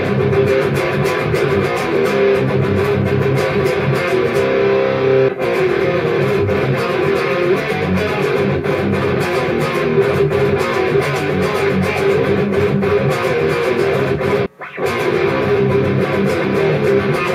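Custom-built electric guitar with DiMarzio LiquiFire and PAF Joe pickups, played through a Fractal Audio Axe-Fx II modeller on its heavy stock preset 29, 'Energy Ball'. It is distorted riffing with continuous picking and one short stop about fourteen seconds in.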